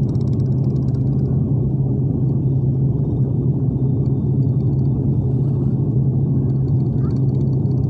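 Lion Air jet airliner's cabin noise in flight: a steady drone of the engines and rushing air, with a strong low hum.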